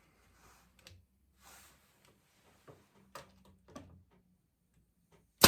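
Workshop handling sounds: a few faint knocks and taps of wooden chair parts and clamps being moved, then one sharp, loud knock near the end.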